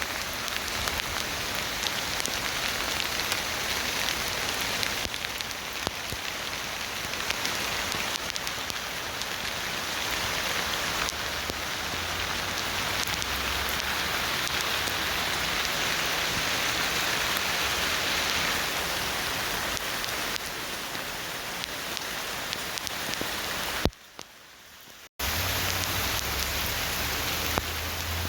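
Steady rain falling. It drops away for about a second near the end, then comes back.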